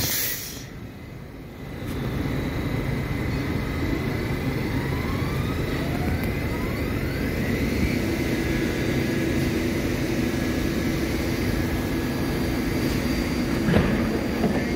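An R68 subway car standing at a platform, its equipment giving off a steady mechanical hum with faint rising whines in the middle. A single sharp knock comes near the end.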